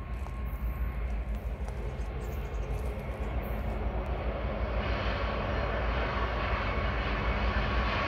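Diesel freight locomotives approaching: a steady engine drone with a deep rumble that grows louder as the train nears, fuller from about halfway through.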